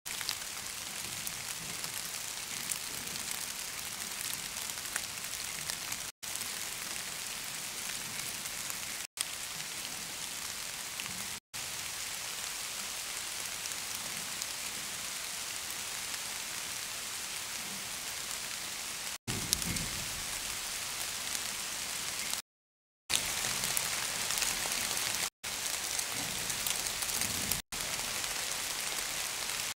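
Rain recorded on an AudioMoth field recorder: a steady hiss of falling rain with sharp ticks of drops striking the recorder. About two-thirds of the way through, a low gust of wind buffets the microphone, and the sound drops out completely for a moment several times.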